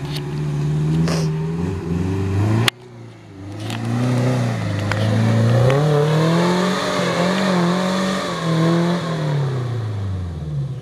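Suzuki Jimny SJ410's 1.0-litre four-cylinder engine working off-road, its revs climbing through the middle and falling away near the end. There is an abrupt break about a third of the way in.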